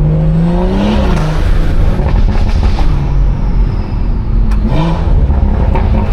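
BMW 340i's turbocharged B58 straight-six with a modified exhaust, accelerating hard. The engine pitch climbs and drops at an upshift about a second in, with exhaust crackles and pops after it, then climbs again to a second shift near the end.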